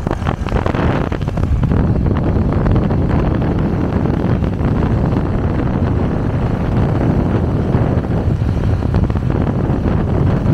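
Motorcycle riding at speed: steady wind buffeting the microphone over the bike's running engine and road noise.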